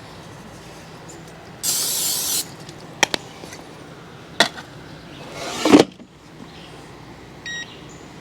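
A short hiss of cooking oil spray from a can, then a couple of clicks and a scrape that ends in a knock. Near the end come quick electronic beeps from a cooking appliance's control panel.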